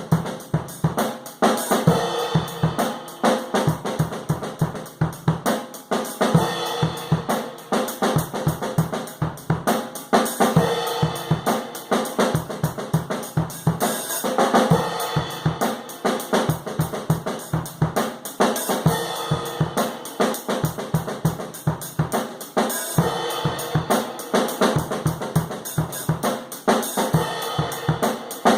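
Nagano Garage Fusion 20 acoustic drum kit played in a steady, continuous groove, picked up by room microphones.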